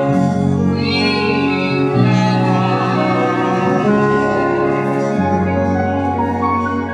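Live stage-musical music: an ensemble holding long sustained chords that change every second or two.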